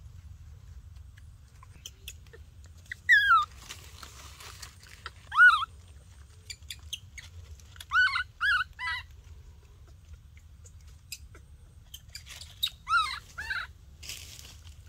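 Baby monkey crying: short calls that fall in pitch. They come singly about 3 and 5.5 seconds in, then three in quick succession about 8 seconds in, then a cluster of several just before the end, over a faint low rumble.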